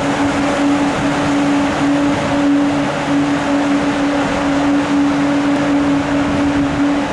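TGV electric power car running through the station below: a steady electrical hum over the rushing noise of its cooling blowers.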